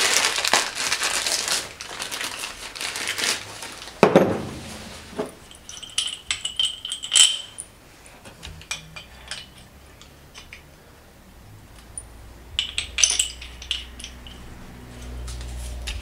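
Plastic packaging crinkling as new belt pulleys are unwrapped, then metal parts clinking and knocking on a workbench as a pulley and the belt tensioner arm are handled, with one ringing metal clink. A low hum comes up near the end.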